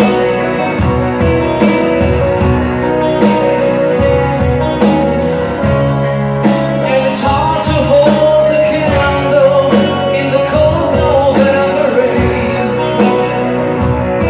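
Live rock band playing through a club PA: electric guitars, bass and a drum kit with regular beats, and a lead vocal line over them.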